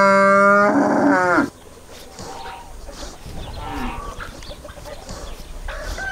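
A young Holstein cow mooing: one long, even call that ends about a second and a half in with a downward slide in pitch.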